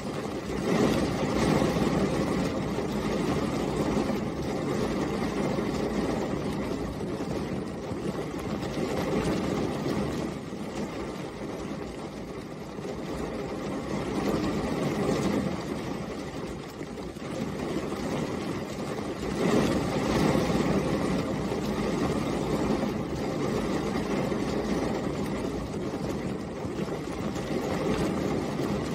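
Steady rain falling, an even rushing noise weighted low that swells and eases every few seconds.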